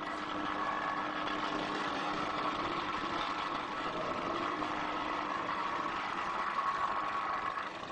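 Engine-driven road-construction machinery running with a steady drone.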